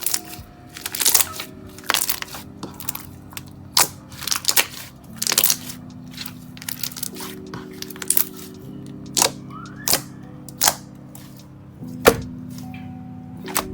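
Water-bead slime being squeezed and pressed by hand, giving irregular sharp crunchy pops and crackles, over soft background music.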